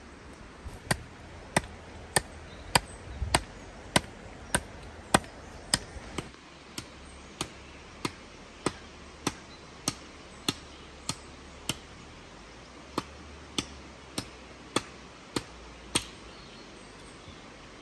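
A steady series of sharp knocks, about one every 0.6 seconds, with a brief pause partway through: a tool or stick striking repeatedly as work is done at the ground.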